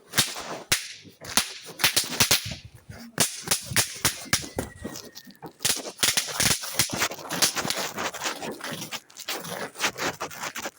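Small novelty fireworks popping: a rapid, irregular run of sharp snaps and cracks, several a second, with short crackling clusters.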